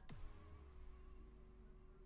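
Near silence with faint background music, a held note over a low hum.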